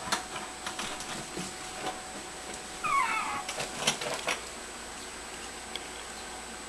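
A Shichon puppy gives one short, high whine about three seconds in, falling in pitch, among scattered light clicks and taps.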